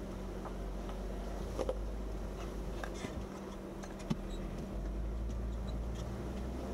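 Jeep Wrangler JKU Rubicon engine running low and steady on an off-road crawl, heard inside the cab, with scattered light clicks and rattles and one sharper knock about four seconds in.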